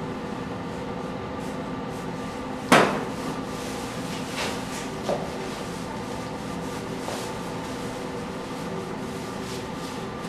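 A spice jar set down on a cloth-covered table with one sharp knock about three seconds in, then two fainter taps, over a steady hum.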